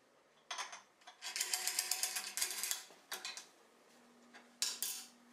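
Threaded tailstock screw of a homemade duplicating lathe being cranked by hand against a wooden spoke blank: spurts of rapid metallic clicking, the longest lasting about a second and a half.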